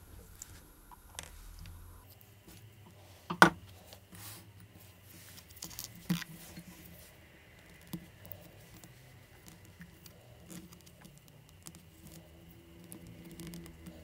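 Small handling sounds at a watchmaker's bench: light clicks and rustles of small tools and parts being picked up and worked by hand, with one sharp tap about three seconds in and fainter taps near six and eight seconds.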